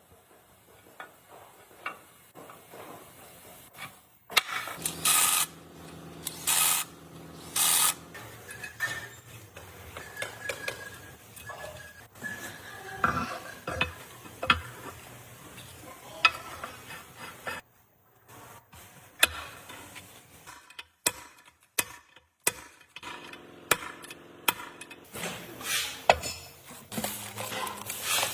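Metal tools and parts clinking, knocking and scraping during hand repair work on a loader gearbox. A faint steady hum comes and goes.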